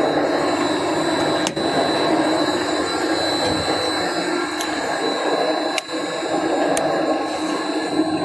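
A welding rotator's inverter-driven motors turning its roller wheels give a steady mechanical hum with a constant high whine. A few sharp clicks come through it.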